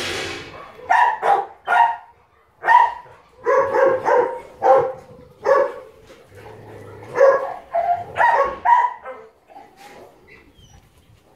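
A dog barking and yipping in a run of short, pitched barks, about a dozen over several seconds, then falling quiet near the end.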